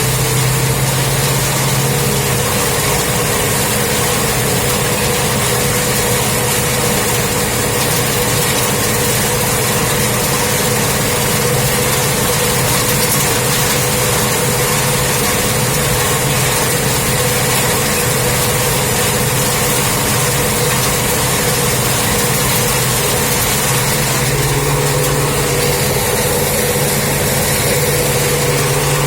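Tractor engine running steadily under load while turning hay swaths, with a broad mechanical noise from the working machinery; the engine note strengthens slightly near the end.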